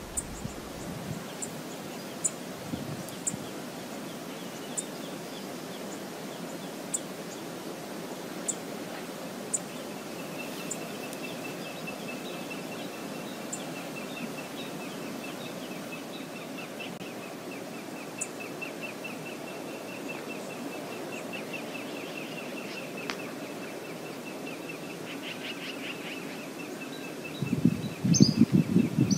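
Outdoor lakeshore ambience: a steady wash of background noise with small birds chirping, sharp high chirps about once a second at first, then a fast run of repeated high chirps from about a third of the way in. A loud low burst of noise comes near the end.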